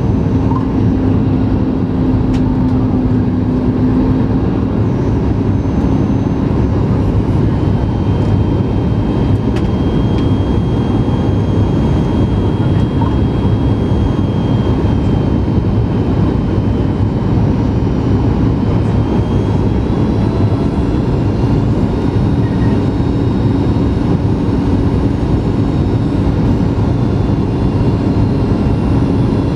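Cabin noise of a Boeing 737 MAX 8 descending on approach, heard from a window seat over the wing: a steady rush of airflow with the hum of its CFM LEAP-1B engines. A low hum fades after a few seconds and returns near the end, and a faint high whine comes and goes in the middle.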